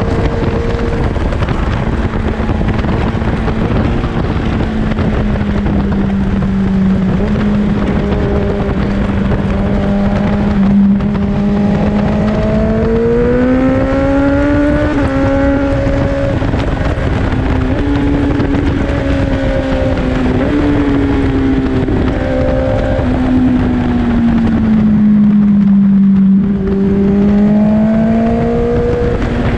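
Four-cylinder sport bike engine running under way, with wind and road noise; its pitch climbs under throttle about halfway through, then drops and rises again near the end.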